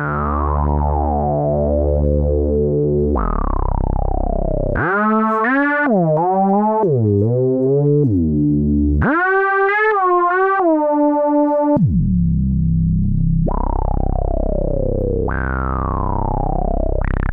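Cherry Audio LowDown software bass synthesizer, an emulation of the Moog Taurus bass pedals, playing deep sustained bass notes. Each note starts bright and darkens as the filter envelope sweeps down. In the middle a run of higher notes glides and wavers in pitch.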